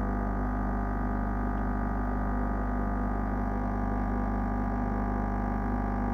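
Lavazza Tiny capsule espresso machine brewing, its pump giving a loud, steady buzz. The owner finds it unacceptably loud for a new machine and suspects a fault in this unit.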